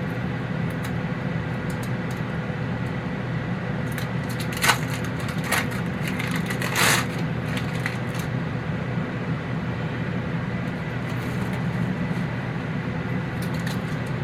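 A kitchen appliance fan hums steadily. A few short clicks come about five seconds in, and a brief crackle follows near seven seconds.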